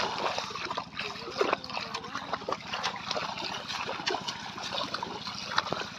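Feet splashing through shallow water: a run of quick, irregular splashes with water trickling in between.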